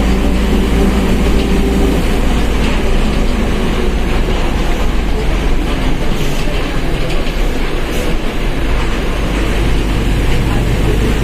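Mercedes-Benz OF1721 BlueTec 5 bus under way, heard on board: its diesel engine and drivetrain run with a steady low rumble, and the differential's gear whine shows as a steady tone, strongest in the first few seconds.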